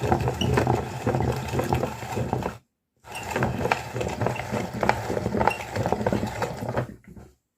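Meat grinder running with a steady low motor hum while crunching candy, with dense rapid crackling and clicking. The sound cuts out abruptly for a moment near the middle, resumes, then stops shortly before the end.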